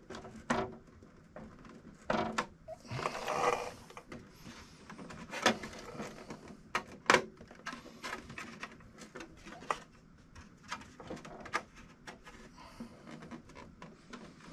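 Plastic body panels of a 1/5-scale RC buggy being handled and fitted onto its chassis: scattered clicks and knocks, with a scraping rustle about three seconds in.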